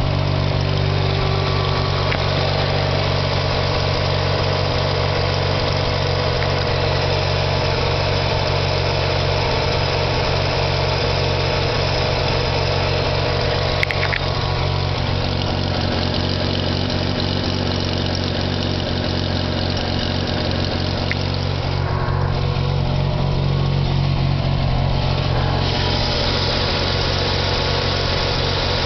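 Mazda RX-7 rotary engine idling steadily, with an unidentified noise coming from the front of the engine. A single sharp click about 14 seconds in.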